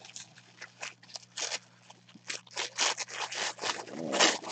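Tissue paper crinkling and rustling as it is handled and pulled open, in quick irregular crackles that start sparse and grow busier and louder after about two seconds.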